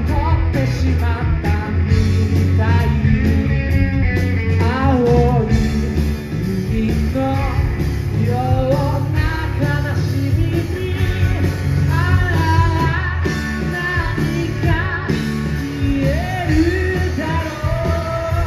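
Live rock band playing with electric guitar, bass guitar and drums, a male lead singer singing over it.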